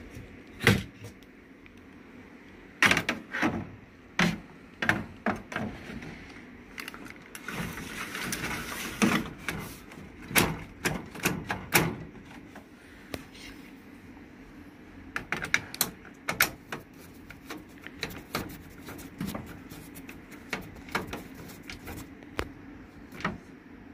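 Irregular clicks and knocks of plastic and metal parts being handled inside the opened front of a Sharp AR-6023N copier, with a brief scraping slide in the middle. A steady low hum runs underneath.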